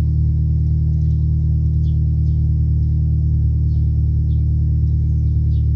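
Nissan Primera P11's 1.6-litre 16-valve four-cylinder petrol engine (GA16DE) idling steadily, heard at the exhaust tailpipe as a low, even drone.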